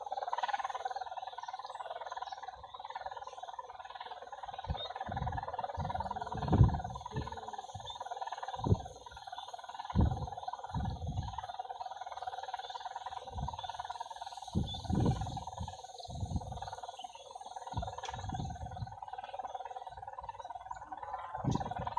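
Kite hummer (sendaren) on a pegon kite, a steady drone in the wind high overhead. Low rumbles of gusty wind hit the microphone again and again.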